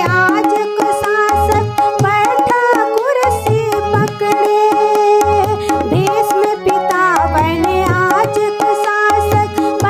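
A woman singing a folk song, accompanied by a harmonium holding steady chords and a tabla keeping a rhythm, with deep bass-drum strokes about every two seconds.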